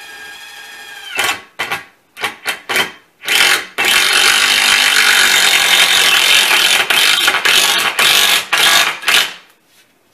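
Cordless drill/driver driving a screw into a wooden railing: a few short trigger pulls, then one long run of about five seconds that stops suddenly as the screw seats.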